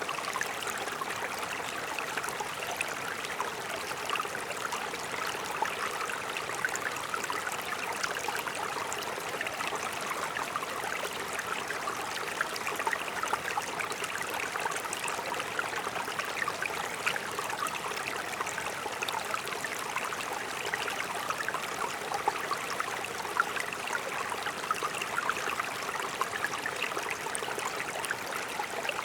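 Mountain stream flowing over rocks: a steady rush of water with fine splashing and trickling.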